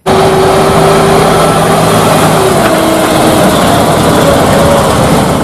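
MAN cement mixer truck's diesel engine running steadily as the truck drives along the street, a loud even rumble with a low steady hum through it.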